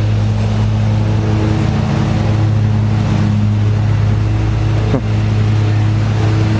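Steady low hum of an engine or motor running, with a noisy hiss over it; a brief falling squeak about five seconds in.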